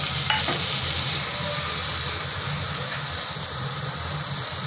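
Chopped tomatoes and boiled vegetables sizzling steadily in butter and oil on a hot tawa griddle, with a light click near the start and a low hum underneath.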